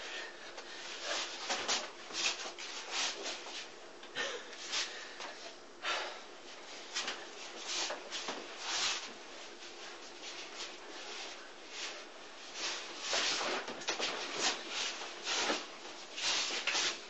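Forearms and shirt sleeves brushing, rubbing and slapping against each other in quick, irregular strokes as two people trade wing chun sticky-hands (chi sao). The strokes come thicker and louder for a few seconds past the middle.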